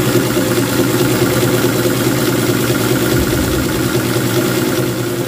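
Domestic zigzag sewing machine running steadily at an even speed, stitching a dense zigzag finishing stitch through towel fabric held in an embroidery hoop.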